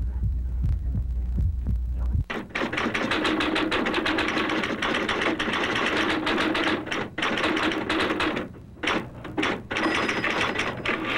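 A low throbbing hum for about two seconds, then rapid typewriter key clatter that keeps going, with a few short breaks near the end, as a caption is typed out.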